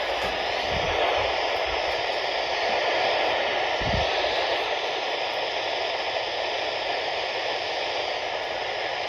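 Weather radio receiver giving a steady hiss of static, with no voice coming through.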